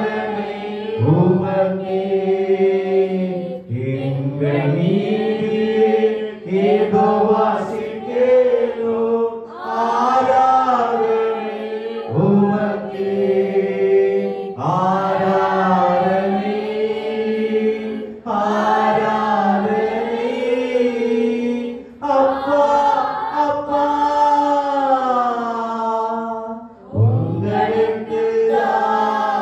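One voice singing a slow Tamil Christian worship song in long, drawn-out phrases with held notes.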